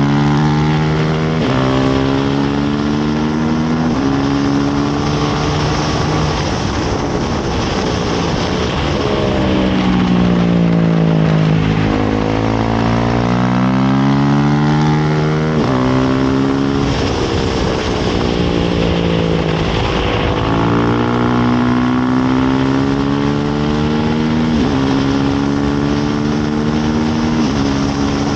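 Race motorcycle engine under hard riding: the revs climb and drop back sharply at each upshift, and fall twice as the bike slows for corners before pulling up again. Wind rushes over the onboard microphone throughout.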